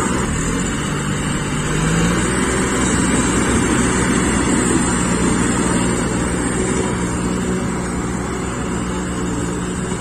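John Deere tractor's diesel engine running steadily, its revs climbing a little about a second in and then holding.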